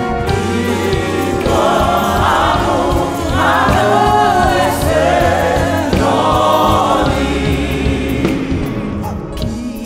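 Gospel worship song sung in Haitian Creole: a woman sings lead into a microphone over keyboard accompaniment, in drawn-out phrases that bend in pitch.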